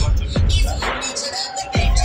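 Background music with deep bass hits that drop in pitch, three of them in two seconds.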